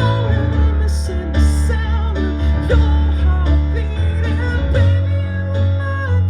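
Music led by a strummed acoustic guitar over a steady bass line, with no sung words: an instrumental break in a live pop song.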